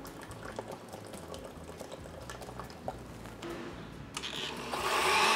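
Vinegar trickling faintly into a countertop blender jar, with a few light clicks. Near the end the blender's motor switches on and runs loudly, emulsifying the vinaigrette.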